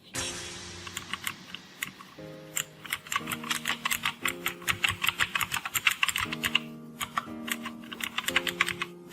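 Typing on a Keychron K4 keyboard with optical blue switches: a fast, continuous run of sharp clicky keystrokes.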